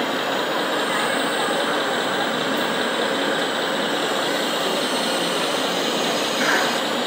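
Steady engine-like running noise of radio-controlled model construction machines at work, even throughout with no distinct knocks or changes.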